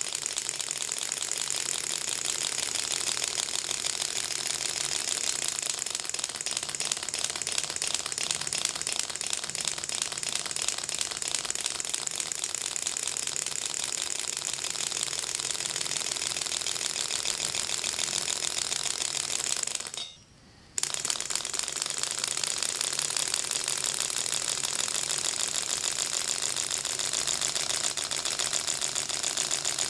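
A six-cylinder rotary Ringbom Stirling engine is running fast, giving a steady, rapid clatter of clicks as each piston works against its free displacer and knocks it back and forth. The sound breaks off for about a second roughly two-thirds of the way through, then carries on as before.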